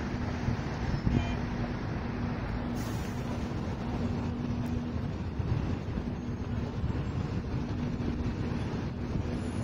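Traffic noise on a city avenue: steady road noise with a low engine drone that comes and goes.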